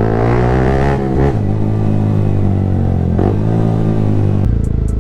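Yamaha MT-15's 155 cc single-cylinder engine running loud through an aftermarket Akrapovic exhaust, accelerating through the gears: the pitch climbs, drops at a gear change about a second in and again near three seconds, then climbs once more.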